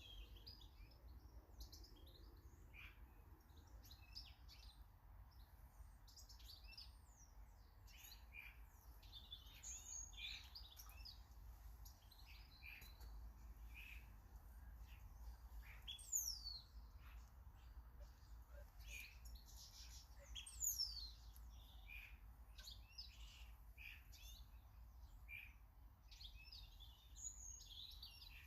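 Small garden birds chirping and calling in many short notes, with two clearer falling whistles about midway. A faint steady low hum runs underneath.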